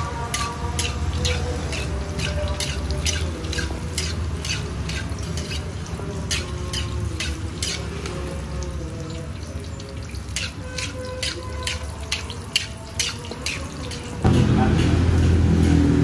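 Martabak frying in shallow oil on a flat iron griddle, the oil crackling and spitting in many small pops over a low steady hum. About 14 seconds in, a sudden louder low rumble cuts in.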